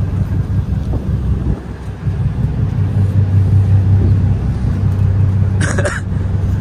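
Wind buffeting the microphone on a ferry's open deck, a loud irregular low rumble, over a steady low drone from the ship under way.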